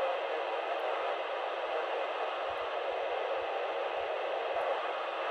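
FM radio receiver hissing with steady static through its speaker, squelch open on the ISS amateur repeater downlink, 437.800 MHz, with no voice coming through.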